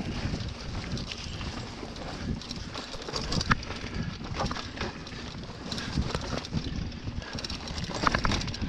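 Hardtail mountain bike rolling fast down rocky dirt singletrack: tyres rumbling over dirt and stones, with irregular clicks and knocks as the bike rattles over the rough ground, and wind noise on the microphone.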